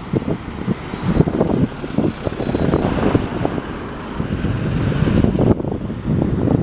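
A vehicle running past, its noise swelling over a few seconds and dropping off sharply about five and a half seconds in, with wind buffeting the microphone throughout.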